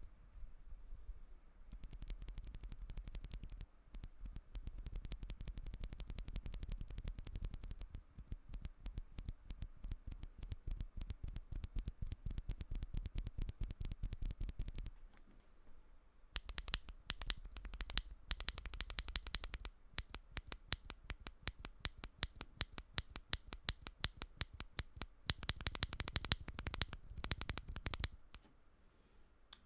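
Mechanical keyboard with tactile switches being typed on: a fast run of key clacks from about two seconds in to about fifteen seconds, then shorter bursts of typing with pauses between.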